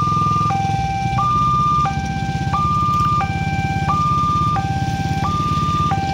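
Railway level-crossing warning alarm sounding from the pole's horn speaker: an electronic two-tone signal that alternates between a low and a high tone, each held about 0.7 s, repeating steadily. Under it runs a low, steady engine rumble.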